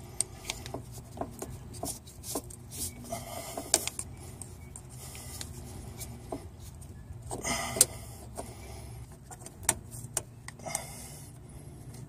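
Thin metal pick scraping and clicking against a plastic quick-connect fuel-line fitting while prying at its retaining clip: scattered sharp clicks with a few longer scrapes.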